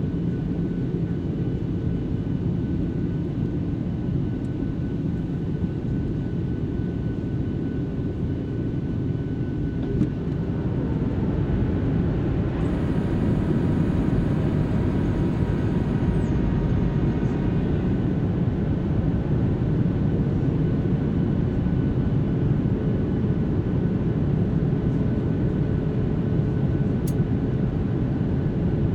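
Cabin noise of a Boeing 737-700 on its landing approach, heard at a window seat over the wing: a steady low rumble of airflow and jet engines. It grows a little louder about ten seconds in.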